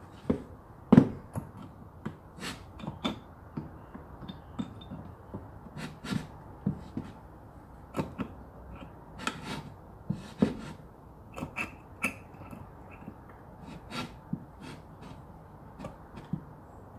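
Pliers gripping and wiggling staples out of an old wooden box: irregular metal clicks and small knocks against the staples and wood, the loudest about a second in.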